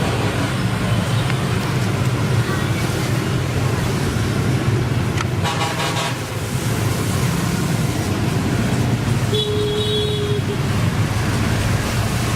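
A steady low hum, with a short pitched toot about nine and a half seconds in.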